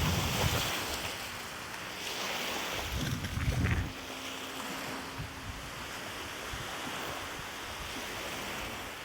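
Wind buffeting the microphone in low gusts, near the start and again about three seconds in, over a steady wash of lake waves.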